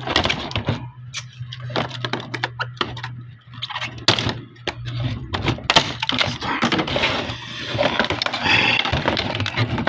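Plastic action figure and its packaging being handled, a stream of small clicks, knocks and rustles as the rubber bands holding the toy are worked off, over a steady low hum.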